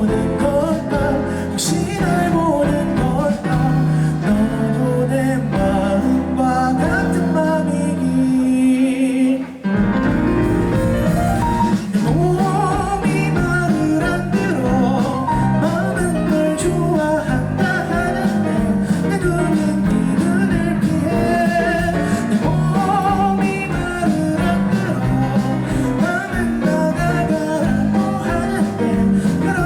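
Live rock band with electric guitar, drums, keyboard and bass playing a song. It breaks off briefly about nine and a half seconds in, then the full band comes back in.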